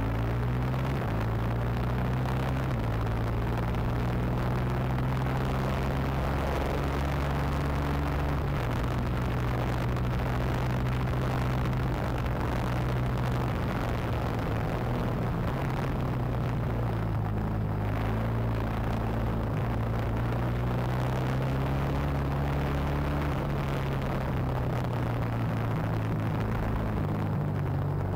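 Racing kart's engine running at speed, heard onboard, its note holding fairly steady with small shifts in pitch, over a constant rush of wind and road noise.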